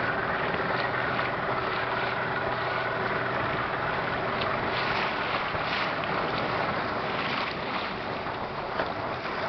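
Steady rush of wind and water around a boat on open water, with wind buffeting the microphone. A boat engine's low idling hum is heard in the first couple of seconds.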